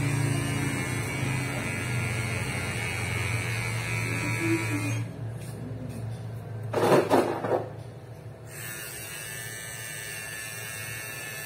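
Cordless hair clipper running with a steady buzz, switched off about five seconds in. A brief loud rough clatter follows a couple of seconds later, then a fainter steady hiss.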